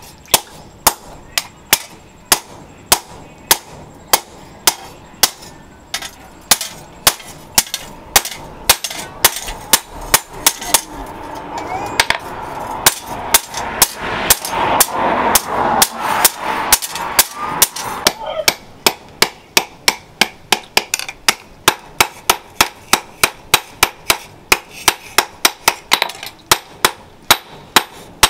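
Hand hammer striking a hot steel strip cut from a motorcycle disc brake rotor on an anvil: a steady run of sharp blows, about two a second at first and quickening to about three a second in the second half.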